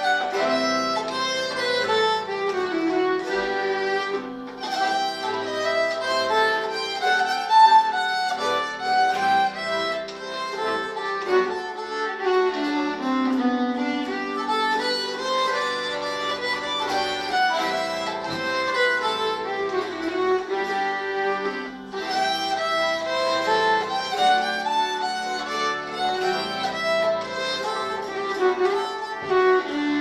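Live folk trio playing a slow Swedish polska: a bowed string melody moving over sustained lower notes.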